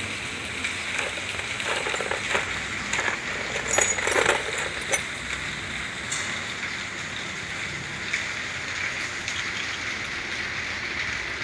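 Loose wrenches and bolts clinking against each other as a hand sorts through a metal toolbox, with a cluster of clinks a couple of seconds in, over a steady hiss.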